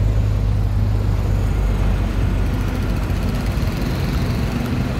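City street traffic: a steady low engine rumble from vehicles close by, settling into a more even traffic hum after about two seconds.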